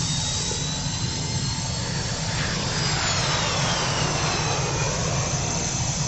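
Sci-fi spaceship sound effect of a craft returning to its hangar: a steady jet-like engine rumble under hiss, with thin high whines, one of them falling in pitch from about halfway through.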